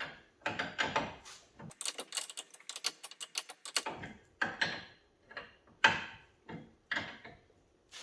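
Gear wrench ratcheting as it runs an axle nut down onto a truck's front axle shaft: a fast run of clicks in the first half, then slower strokes, about two a second.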